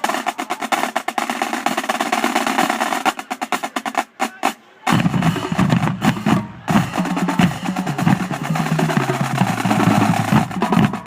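Marching drumline playing: snares and tenor drums in fast rolls and rapid strokes, then about five seconds in, after a brief break, the tuned bass drums come in playing stepped runs of different pitches under the rest of the line.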